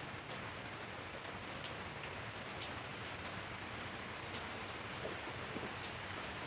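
Steady rain falling on wet concrete paving and broad leaves, an even hiss with scattered sharper drop hits ticking through it.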